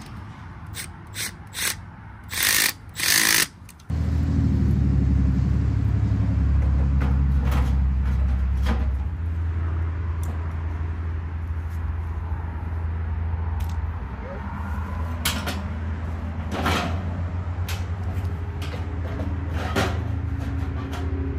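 A hand ratchet clicking in short strokes as the blower motor's mounting band bolt is tightened. About four seconds in, a steady low mechanical hum starts abruptly and continues, with occasional clicks over it.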